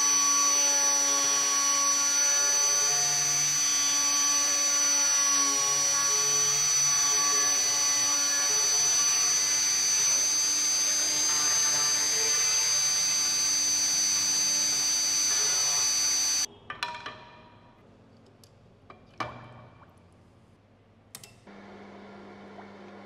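Flexible-shaft rotary tool running steadily with a high whine, stirring a white powder into a water bath. It cuts off suddenly about three-quarters of the way in, leaving a few faint knocks and then a low steady hum near the end.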